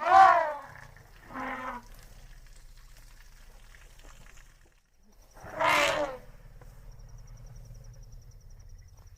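Asian elephant calls: a loud call falling in pitch right at the start, a short quieter call about a second and a half in, and another loud call a little past halfway, with a low steady hum between them.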